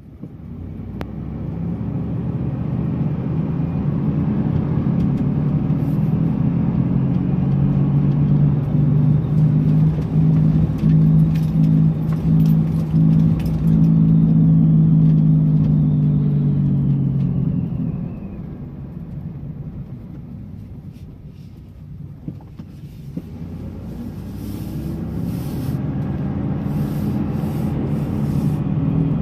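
2002 Dodge Dakota's bad wheel bearings droning while the truck is driven: a low, steady hum that builds over the first several seconds, dies down about 18 seconds in, and builds again near the end.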